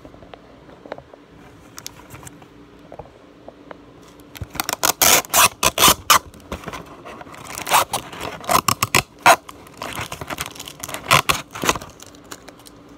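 Toy packaging being handled: irregular bursts of loud scraping and rustling strokes. They start about a third of the way in and come in clusters for most of the rest.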